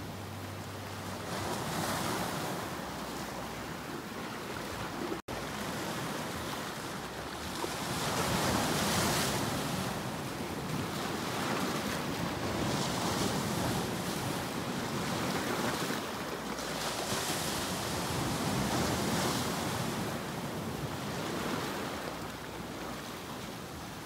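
Sea waves breaking and washing over shoreline rocks, the surf swelling and falling back every few seconds. The sound cuts out for an instant about five seconds in.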